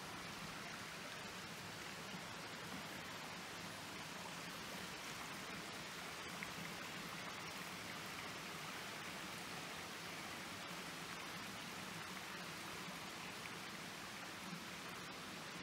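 A small forest stream running: a steady, even rush of water with no break.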